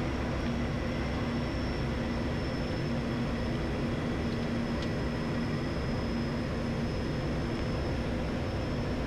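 Steady cockpit noise of an ATR turboprop airliner on final approach with gear down and flaps 30: an even drone of engines, propellers and airflow, with a low hum and a faint high whine.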